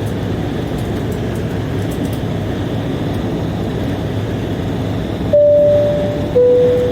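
Steady cabin rumble of an Embraer E190 airliner. About five seconds in, a two-tone high-low cabin chime sounds, each tone ringing and fading, the signal that a cabin announcement is coming.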